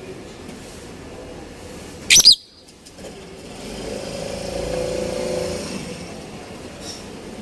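A small pet bird gives one short, loud, shrill burst of quick rising chirps about two seconds in. Later a vehicle's engine hum swells and fades as it passes.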